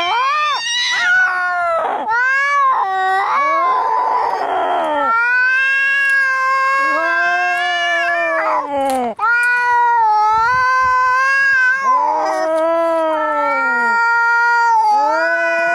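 Angry cats fighting: long, drawn-out caterwauling yowls that rise and fall in pitch, almost without pause, with a harsh hissing stretch about four seconds in.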